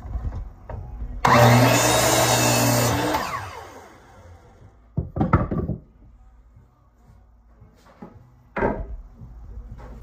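Old Craftsman miter saw starting up about a second in and cutting through a 2x4 for about two seconds, then spinning down with falling pitch. Two short knocks follow later as the board is handled on the bench.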